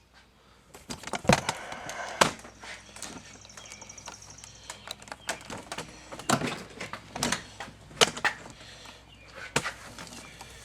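Hand tools and plastic dash trim being handled: irregular sharp clicks, knocks and rattles, with a brief run of fast light ticking early on.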